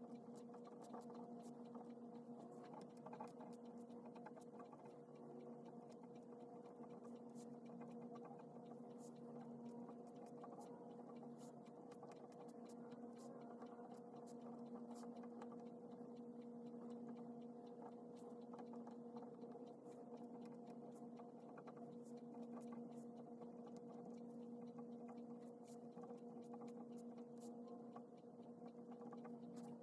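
Near silence: a faint steady electrical hum, with scattered faint ticks.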